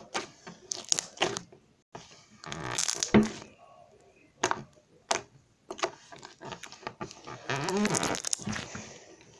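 Slime being squished, pressed and pulled by hand for ASMR, giving wet squelches, crackles and air-pocket pops in irregular bursts, the longest about three seconds in and about eight seconds in.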